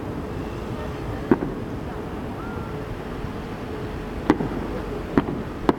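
Fireworks going off: four separate sharp bangs, one about a second in and three close together near the end, over a steady background noise.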